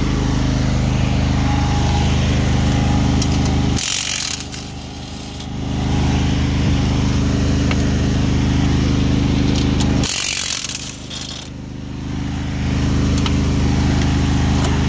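Zero-turn mower's engine running steadily at idle, broken twice, about four seconds in and about ten seconds in, by a cordless impact wrench rattling for a second or so each time as it undoes the attachment's mounting bolts.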